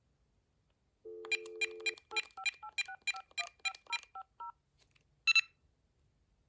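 Dial tone from a VTech CS5121 cordless handset for about a second, then a quick string of about ten touch-tone (DTMF) digits as a number is dialed, followed by a single short high beep near the end.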